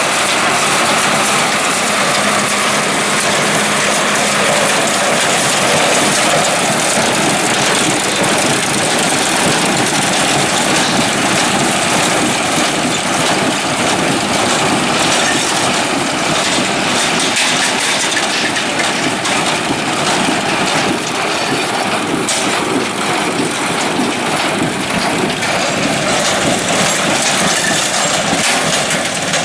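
New Holland tractor pulling a small square baler that is picking up and baling hay, the engine running under load over the baler's steady mechanical clatter.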